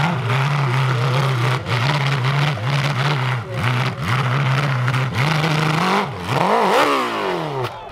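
Enduro dirt bike engine revving hard up a steep hill, the throttle opening and closing in repeated bursts. Near the end the revs shoot up and fall away as the bike rears over backwards.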